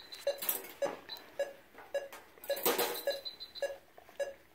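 Anaesthesia monitor beeping with the anaesthetised dog's pulse, a short steady beep about twice a second, with rustling and handling noise from the surgical field, loudest about two and a half seconds in.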